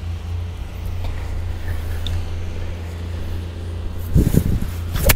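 Steady low rumble of wind on the microphone, then near the end a single sharp crack of a golf iron striking the ball cleanly.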